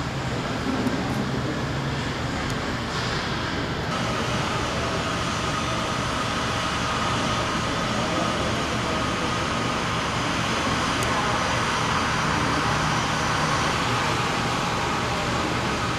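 Jet airliner engines running, a steady rushing noise with a thin whine that comes in about four seconds in.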